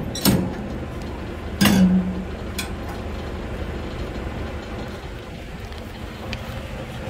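Truck's diesel engine idling steadily, with a few sharp knocks in the first three seconds, the loudest about a second and a half in.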